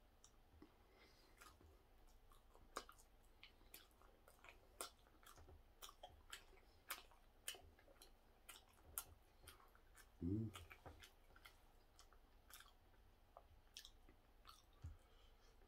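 A man chewing a mouthful of soft steamed bun (hoppang): faint, irregular wet mouth clicks and lip smacks, one to two a second. A brief voiced hum about ten seconds in.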